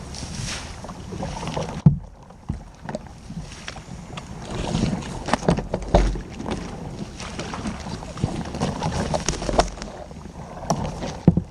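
Kayak on the move in a shallow creek: water splashing, with irregular knocks and clicks of the paddle and gear against the hull. There is a sharp knock about two seconds in.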